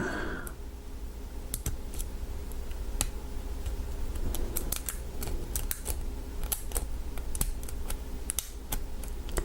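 Lock pick working the pins of an American 1100 pin-tumbler padlock under tension: irregular light clicks and scrapes as pins are lifted and set in the plug.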